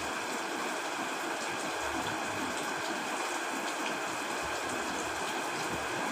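Steady heavy rain: an even hiss with faint scattered drop ticks.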